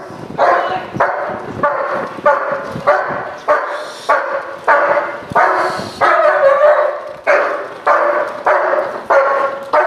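German Shepherd protection dog barking repeatedly at a decoy in a bite suit, an even run of about three barks every two seconds.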